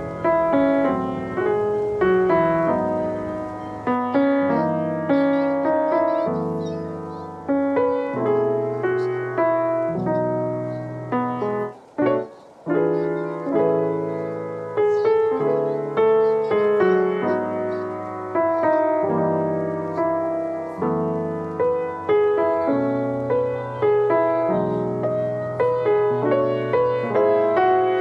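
Background music led by piano, with notes struck at a steady pace and a brief pause about twelve seconds in.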